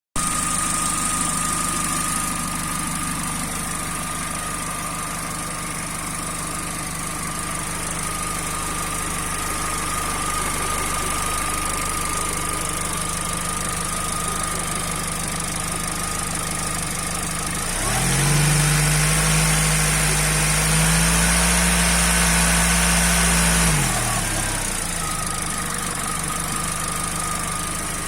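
Peugeot/Citroën TU5JP4 1.6-litre four-cylinder petrol engine idling warm, at about 80 degrees, with the knock gone according to the owner. About two-thirds through, the revs rise, hold for about six seconds, then drop back to a steady idle.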